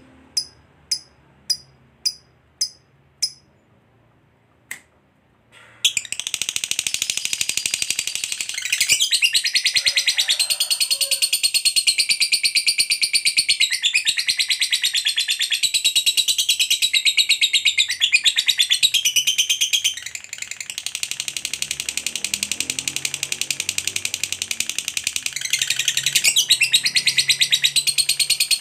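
Lovebird giving sharp single chirps, about two a second, then from about six seconds in breaking into a long unbroken rapid high chatter, the 'ngekek panjang' long trill of a singing lovebird. The chatter eases a little around twenty seconds in and then picks up again.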